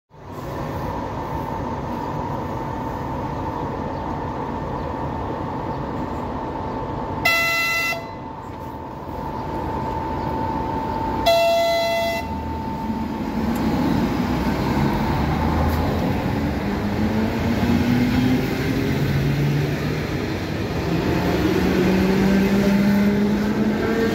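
Electric passenger train moving along the platform, with running noise and a steady high tone. It gives two short horn blasts, about seven and eleven seconds in. Through the second half its motors whine with a steadily rising pitch as it gathers speed.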